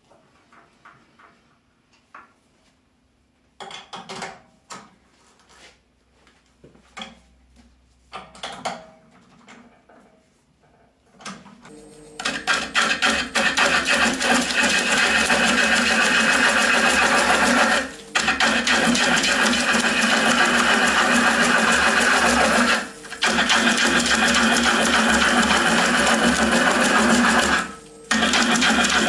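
A gouge cuts into the inside of a large spinning wooden bowl on a ONEWAY 2436 lathe, making a loud, steady shearing and scraping noise over the hum of the lathe. The noise stops briefly three times as the tool comes off the wood. Before that, for about the first ten seconds, there are only scattered light knocks and clicks from handling the lathe and the tool rest.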